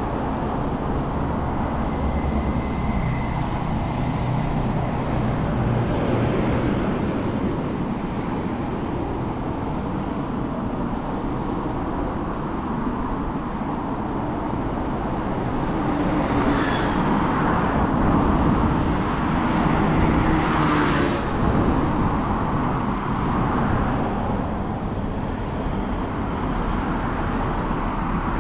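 Steady road traffic with cars passing. A louder spell of passing vehicles comes a little past halfway.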